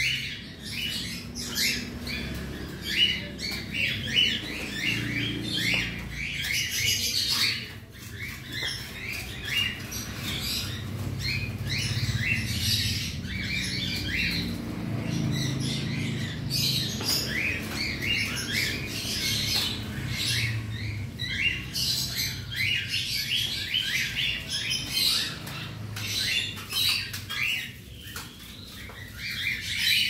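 A flock of cockatiels chirping and calling, many short, overlapping calls with no break.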